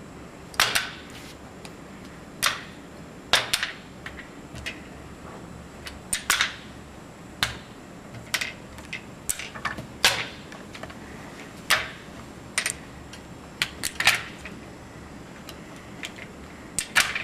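Casino chips clicking against one another and against a metal chip tray as stacks are picked up and set back in the rack. The clicks are sharp and irregular, about one a second, some coming in quick pairs or threes.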